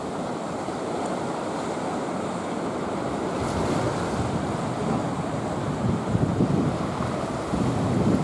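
Choppy sea water sloshing and lapping, with wind buffeting the microphone; the rumbling gusts swell louder about six seconds in and again near the end.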